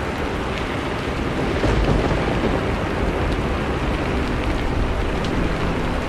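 Steady rain, with single drops ticking now and then, and a low rumble of thunder that swells about two seconds in and then eases off.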